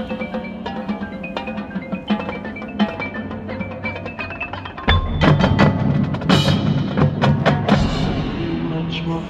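Marching band show music: front-ensemble mallet percussion plays a quick pattern of short ringing notes, then about five seconds in the music gets much louder with heavy drum hits and a cymbal crash.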